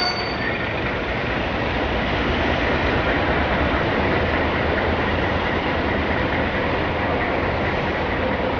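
Self-propelled yellow track maintenance machine rolling slowly past on the rails. Its engine and running gear make a steady noise with a low hum.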